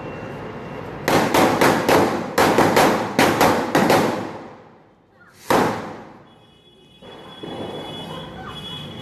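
Diwali firecrackers going off in quick succession: about ten loud bangs over three seconds, then one more bang a moment later.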